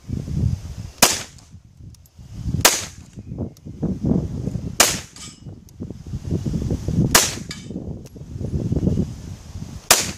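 GSG MP40 9mm blowback semi-automatic pistol firing five single shots, spaced about two seconds apart. Wind rumbles on the microphone between the shots.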